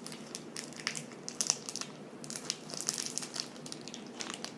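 Plastic wrapper of a pack of modelling clay crinkling and crackling as it is handled and torn open by hand, in irregular clusters of sharp crackles.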